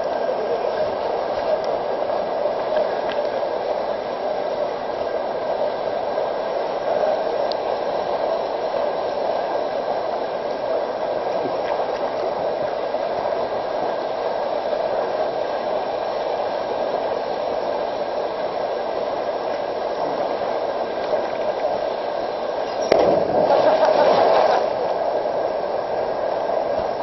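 Small waterfall pouring into a stream pool: a steady rush of falling water. Near the end comes a sudden loud splash of a person jumping into the pool, with a second or so of churned water after it.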